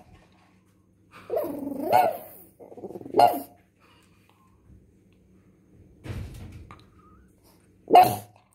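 Pug barking in short, separate bursts: a drawn-out, bending bark about a second in, a shorter bark about three seconds in, a low rumble around six seconds, and one sharp, loud bark near the end.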